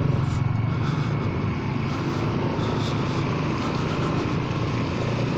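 A Honda Forza 300 scooter's single-cylinder engine runs with a steady low hum at low speed. Under it is an even hiss of tyres on the wet road and wind.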